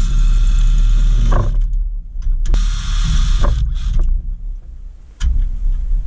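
Cordless drill running with its bit in the rivet of a pressed-steel Tonka toy forklift, drilling it out to take the toy apart. It runs steadily, drops out briefly about two seconds in, runs again and stops; a sharp metal click follows about five seconds in.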